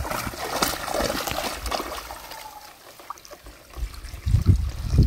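Water splashing and trickling as a hand scoop net is swept through shallow muddy water and lifted out, water draining through the mesh. It goes quieter about halfway through, then low thuds come in near the end.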